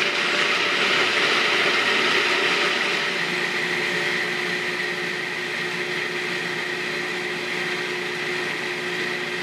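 Food processor running steadily as it grinds walnuts into a soft meal. The motor and whirling nuts make an even whirring, and a steady hum comes in about three seconds in.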